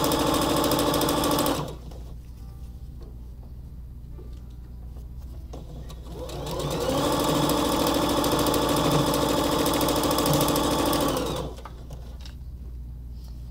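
Electric sewing machine stitching a seam, running at steady speed and stopping about a second and a half in. About six seconds in it starts again, speeds up, and runs steadily for about five seconds before stopping.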